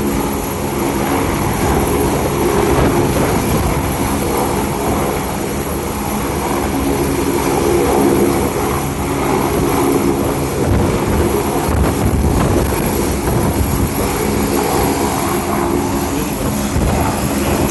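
Helicopter running steadily: a loud, even engine and rotor noise with a constant hum.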